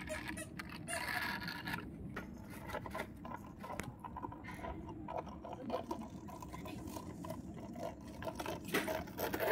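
Plastic toy vehicles pushed and handled on a carpet: wheels scraping and rubbing over the pile, with many small plastic clicks.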